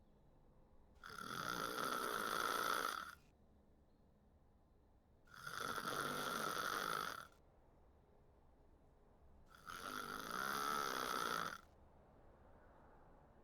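A sleeping person snoring in a steady rhythm: three snores about four seconds apart, each lasting about two seconds.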